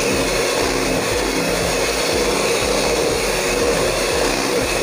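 Electric hand mixer running steadily, its beaters whipping thick cake batter in a bowl.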